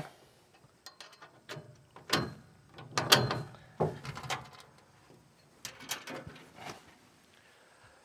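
Metal latches, a pin and a hinged steel infeed chute on a PTO wood chipper being handled as the chute is unlatched and folded up: a string of separate metal clicks and clunks.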